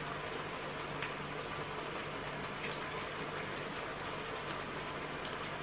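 Boneless chicken pieces frying in a pan of butter and teriyaki sauce, sizzling steadily, with a few faint pops.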